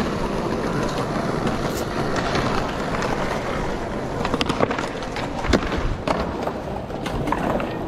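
Skateboards rolling over paving, with a steady rumble of wheels and several sharp clacks of boards striking the ground from about halfway through. The loudest clack comes a little after the middle.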